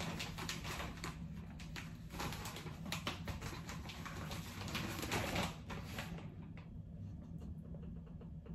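A clear plastic zip-top bag crinkling and rustling as it is handled, in irregular crackles that die down about six seconds in.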